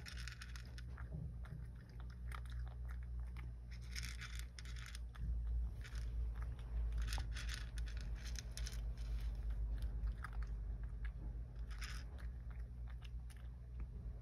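Cat crunching dry kibble, chewing in spells of crisp crunches every few seconds, over a steady low hum.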